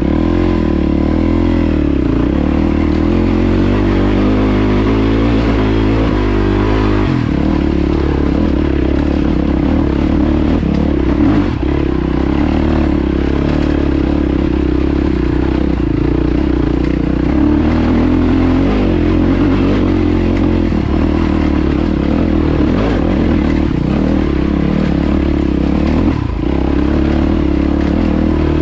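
Yamaha WR450F's single-cylinder four-stroke engine running under load as the dirt bike climbs a loose rocky track. The engine note changes about seven seconds in.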